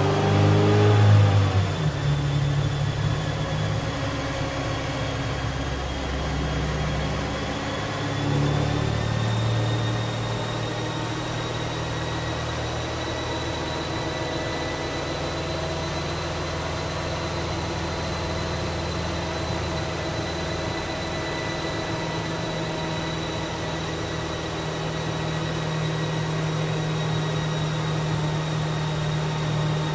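Ford Ranger's 2.3-litre four-cylinder engine on a chassis dyno, coming off the top of a full-throttle pull in the first couple of seconds, revs falling away, then settling to a steady low idle. A faint steady high whine runs over it.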